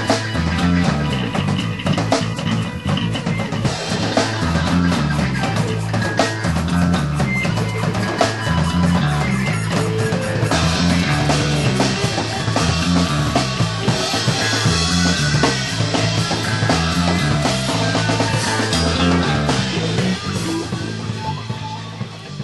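Rock music played by a band: drum kit, a repeating bass line and guitar. It fades down near the end.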